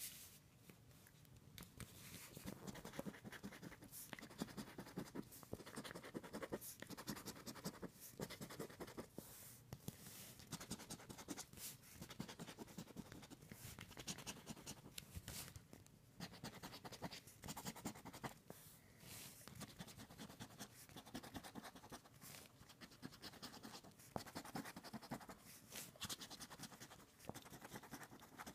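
Quiet, rapid scratching as the coating is scraped off a scratch-off lottery ticket, in quick strokes grouped in short runs with brief pauses.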